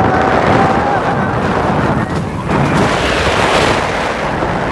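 Nitro, a steel hyper coaster, with its train running at speed: loud rushing wind over the microphone and the rumble of the wheels on the track, swelling again in the second half. A thin, high, wavering held tone sounds over the rush in the first second.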